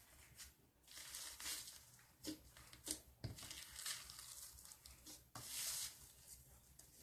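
Slime being mixed and squished by hand, giving faint, irregular sticky crackling and squelching in short bursts.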